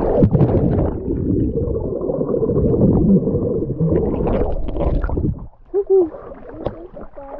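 Loud, muffled rushing and gurgling of lake water right against the microphone for about five and a half seconds, then cutting off suddenly.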